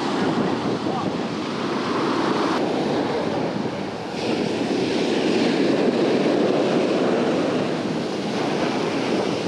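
Ocean surf breaking and washing up the beach in a steady rush of foam, with wind blowing on the microphone.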